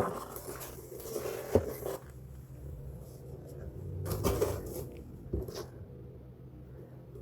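Handling noises from unboxing an impact wrench: packaging rustling and a few knocks and thuds as the tool and its box are moved, over a steady low hum.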